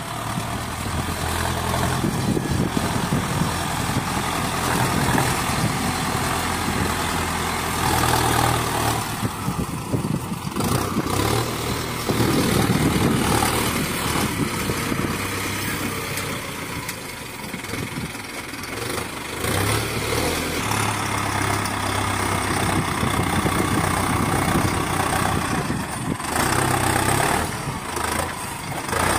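Tractor diesel engine running at work as a front-end loader scoops and lifts sand, its pitch and level rising and falling with the load and changing abruptly a few times.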